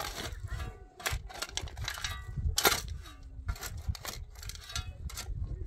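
Metal spade digging into stony, dry soil: a series of sharp scrapes and clinks as the blade strikes stones and scoops out dirt.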